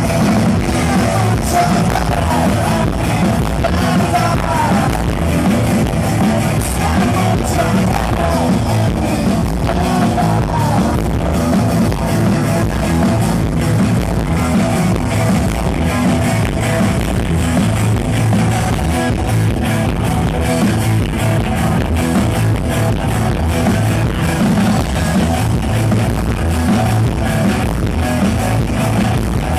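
Live rock band playing: electric guitar, bass guitar and drum kit, loud and continuous.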